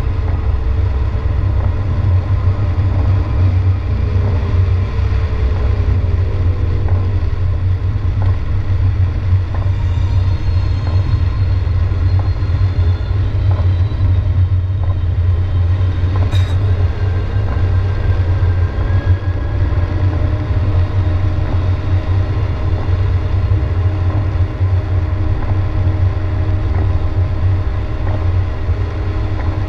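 Steady low rumble of a car's engine and tyres on a wet road, heard from inside the cabin while driving. A single sharp click about sixteen seconds in.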